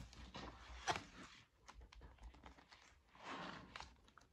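Faint handling of a K-pop album photobook: a sharp tap about a second in, small paper and cover ticks, and a soft rustle of pages being turned near the end.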